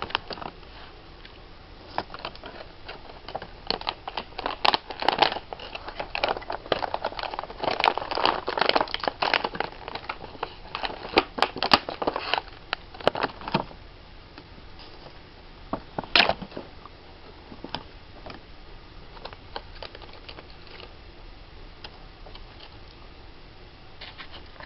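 Packaging of a camcorder being handled and pulled open: a dense run of crinkling and crackling for about ten seconds, one sharp crackle a little later, then only a few faint clicks.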